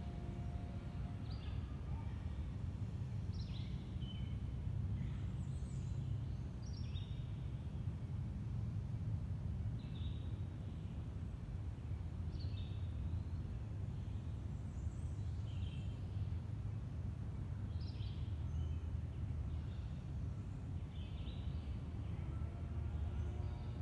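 Wild birds chirping in short high calls, some falling in pitch, every second or two, over a steady low rumble of background noise.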